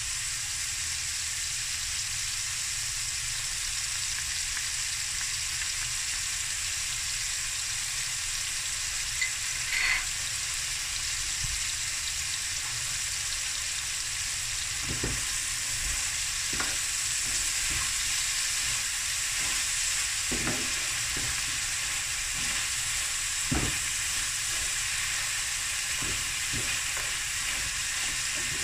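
Boerewors sausage pieces with onion and jalapeños sizzling steadily in a hot pan, with a sauce of hot sauce and chutney just poured in. In the second half a wooden spatula stirs the pan, with scattered knocks and scrapes against it.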